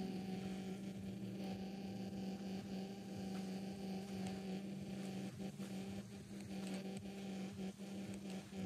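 Steady low machine hum holding one pitch, with faint scattered clicks and ticks over it.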